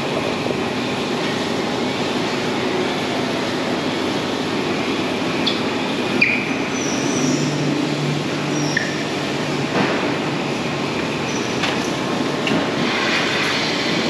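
A 60-stall rotary milking parlour turning and milking: a steady mechanical running hum and rumble of the rotating platform and milking equipment, with a few short metallic squeaks and clicks.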